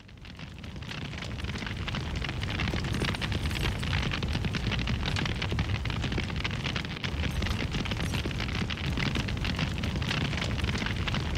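Fire burning: a steady low rumble with dense crackling throughout. It fades in from silence over the first two seconds, then holds steady.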